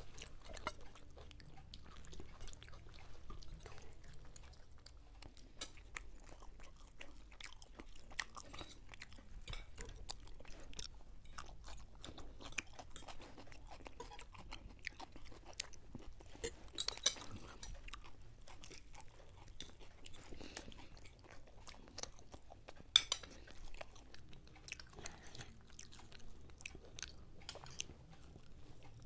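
Two people chewing and biting into fried Mughlai paratha and crumbed chicken chop, with close-up wet mouth sounds, soft crunches and frequent small clicks. Two sharper clicks stand out, about 17 and 23 seconds in, the second the loudest.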